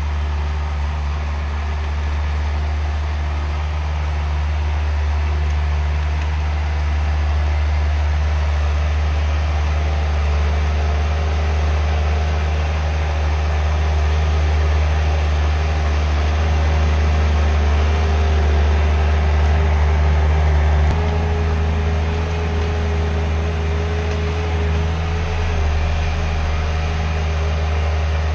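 Skid steer engine running steadily under work, with a deep, even rumble; about two-thirds of the way through its note steps down slightly and stays there.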